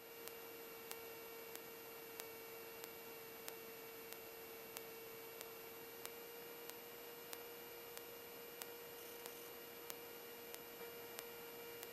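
Faint steady electrical hum with a high whine and a soft tick about every two-thirds of a second. This is the idle line of an aircraft intercom and radio audio feed between transmissions.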